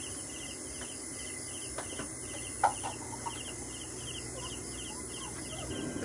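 Night insects chirping in a steady rhythm, about two pulses a second, over a continuous high-pitched insect hiss. A single sharp click sounds about two and a half seconds in.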